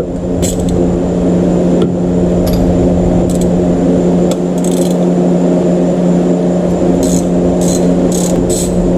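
A steady motor drone at one constant pitch. Light metallic clicks and clinks of hand tools come over it several times, most of them close together near the end.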